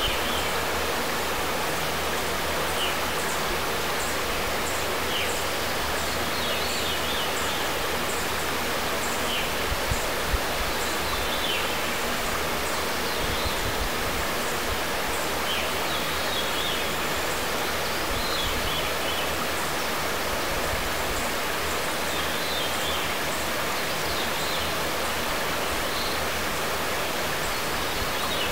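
Shallow river flowing over gravel with a steady rush of water, birds chirping now and then above it. Two brief low knocks about ten seconds in.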